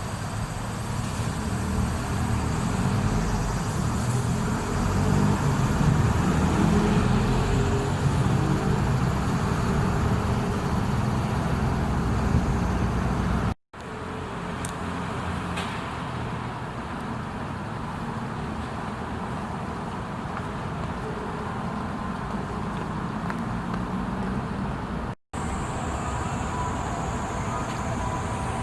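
Steady rumble of passing vehicles and traffic, heaviest in the first part. It breaks off abruptly twice as the recording cuts between takes.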